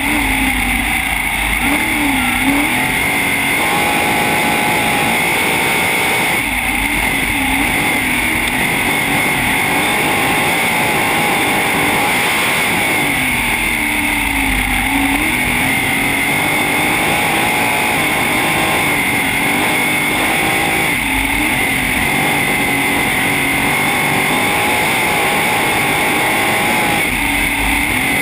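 Sprintcar's V8 engine heard on board, loud and unbroken, its note dipping and rising again about every seven seconds.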